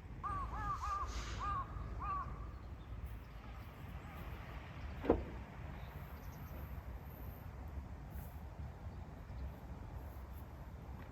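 A crow cawing, a quick run of about six caws in the first two seconds. About five seconds in comes a single short, sharp knock.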